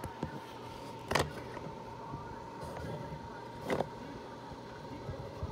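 Two sharp knocks of hard plastic being handled, about two and a half seconds apart, with a few lighter clicks, over a steady low hum and a thin high tone.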